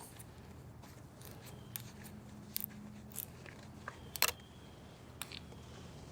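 Scattered light clicks and taps from hands handling the new oil filter and oil while prepping the filter's gasket, the loudest a little past four seconds in.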